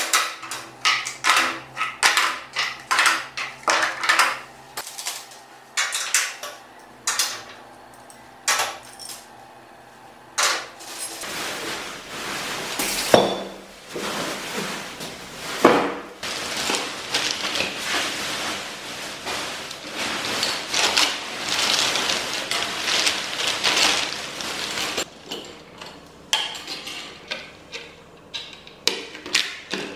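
Steel parts clinking and clanking against a steel welding cart and its perforated table top, as many sharp separate knocks. About a third of the way in they give way to a longer stretch of dense rustling, with a few hard knocks, as a cardboard box is handled, then scattered metal clicks return near the end.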